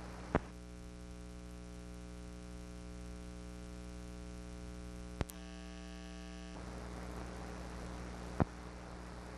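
Steady electrical mains hum and hiss from an archival film transfer with no sound of its own, broken by three short sharp clicks: about half a second in, near the middle, and near the end.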